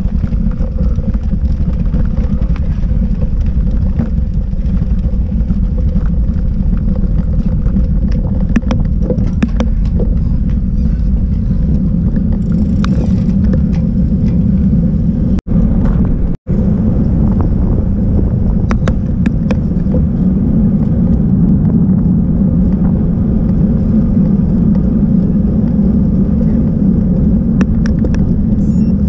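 Wind buffeting the microphone of a bicycle-mounted action camera, mixed with the steady rumble of the tyres on the road while riding. The sound cuts out briefly twice about halfway through.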